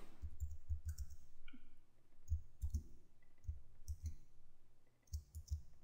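Typing on a Mac keyboard: faint, irregular key clicks in several quick runs with short pauses between them.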